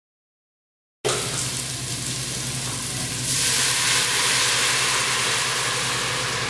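Chopped vegetables sautéing in olive oil in a stainless steel stockpot sizzle, starting abruptly about a second in. Chicken broth poured in from a carton hits the hot pot, and the sizzling grows louder about three seconds in, with steam rising.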